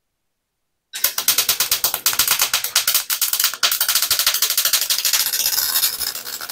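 MIG welding arc crackling in rapid pops, starting suddenly about a second in. The wire is feeding too fast: the welder's wire feed is stuck wide open and won't turn down.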